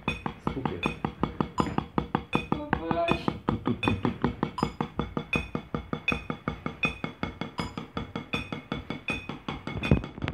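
Drumsticks striking a rubber drum practice pad in a fast, even warm-up pattern, about six or seven strokes a second, each with a light ping. There is one heavier knock near the end.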